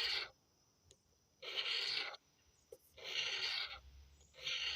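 Scratch-off lottery ticket being scratched in repeated strokes, one scrape about every second and a half, each lasting under a second.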